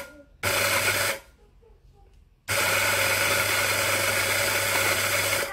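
Electric coffee grinder grinding coffee straight into a metal dosing cup, switched on in bursts: a short burst of under a second about half a second in, then a longer run of about three seconds that cuts off near the end. A steady motor hum runs under the grinding noise.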